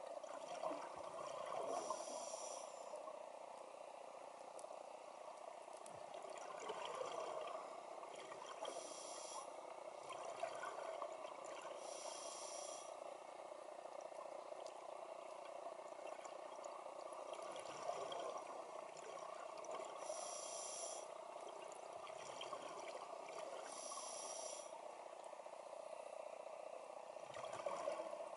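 Scuba regulator breathing heard underwater. Short hissing inhalations come every few seconds, with bubbling exhalations between them, over a steady underwater hiss.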